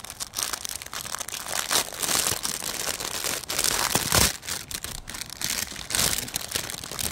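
Packaging crinkling and rustling as a cross-stitch kit's embroidery floss is taken out and handled, in irregular bursts, loudest about four and six seconds in.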